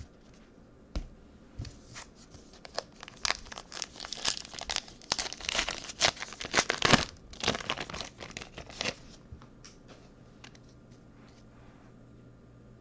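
Trading card pack wrapper being torn open and crinkled by hand: a run of sharp crackles that thickens in the middle and dies away after about nine seconds.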